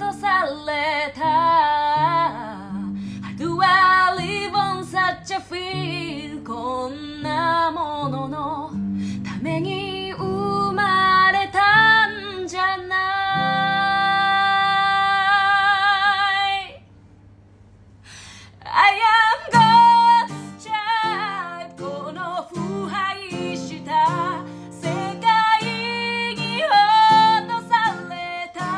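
A woman sings a slow Japanese ballad over an acoustic guitar. About halfway through she holds one long note, then the music stops for about two seconds before the voice and guitar come back in.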